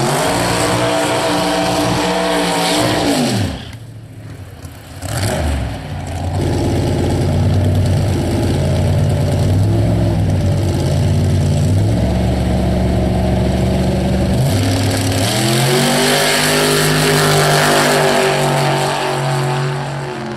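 Pro Mod 1970 Plymouth 'Cuda's 706-cubic-inch V8 drag-racing engine. It revs hard through a tyre-smoking burnout, then is held at stepped engine speeds while staging. About fifteen seconds in it rises to a loud, sustained full-throttle launch.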